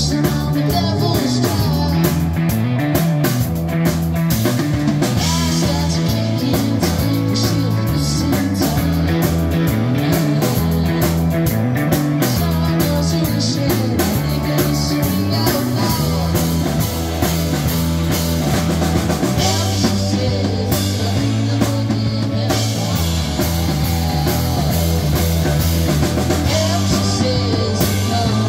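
Live rock band playing a song: two electric guitars, a drum kit and a keyboard, with a lead vocal sung into a microphone.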